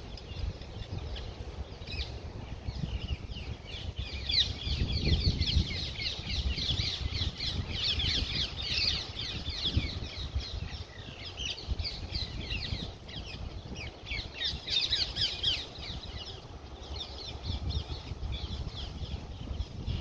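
Many birds chirping and chattering at once: a dense chorus of short high calls that thickens about four seconds in, over a low rumble.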